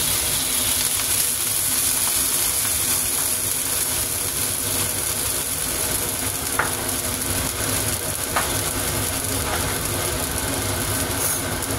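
Water sizzling and simmering in a hot wok around pieces of fried chicken and tofu, a steady hiss with a couple of faint ticks partway through.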